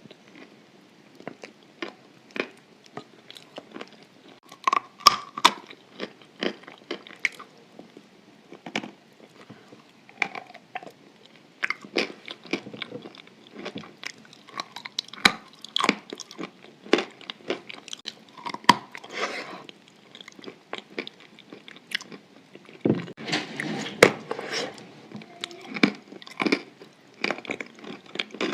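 Close-up chewing of chalk coated in white clay paste: irregular sharp crunches and cracks as the chalk is bitten and ground between the teeth, with softer, wetter chewing of the paste. The crunching is busier and louder in a few spells, about five seconds in and again in the last few seconds.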